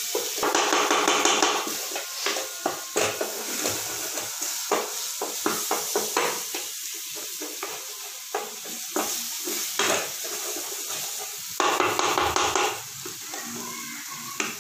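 A masala of ginger-garlic paste, tomato and spice powders sizzles steadily as it fries in oil in a non-stick kadai, before the chicken is added. A wooden spatula stirs and scrapes it against the pan with frequent clicks and knocks. The sound swells louder for a moment near the start and again near the end.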